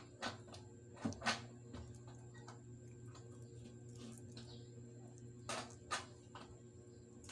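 Hands cleaning small fish over a plastic bag: a few short sharp crinkles and clicks from the bag and fish, in pairs about a second in and again later, over a steady low hum.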